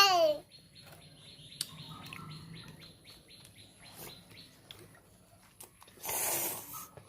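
Small birds chirping in a rapid run of short, high notes. About six seconds in comes a brief, louder burst of rustling noise.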